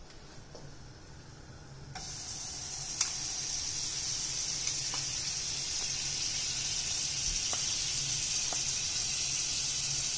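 Butter melting and sizzling in a hot frying pan: a steady high hiss that comes in about two seconds in, with a few faint ticks over it.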